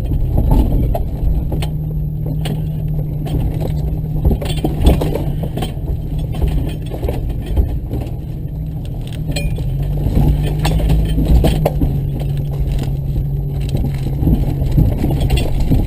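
Off-road vehicle's engine running steadily at low revs over rough ground, with a stream of knocks and rattles as it bumps along.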